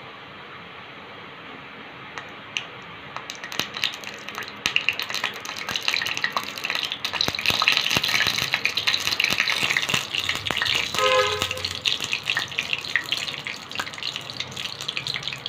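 Mustard seeds in hot oil in a pan, at first a low steady sizzle, then crackling and popping in dense rapid clicks from about four seconds in as the seeds splutter. The spluttering is the sign that the oil is hot enough for the tempering.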